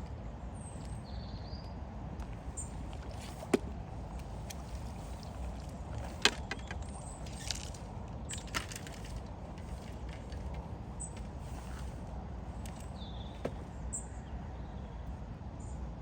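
Outdoor ambience with a steady low rumble, short high bird chirps here and there, and a few sharp clicks, the loudest about three and a half and six seconds in.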